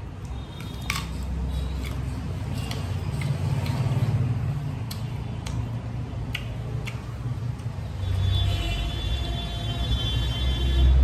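Quiet eating of fresh fruit (apple and watermelon) over a steady low rumble, with scattered short clicks and smacks from chewing and handling the fruit. A faint high-pitched whine comes in about eight seconds in.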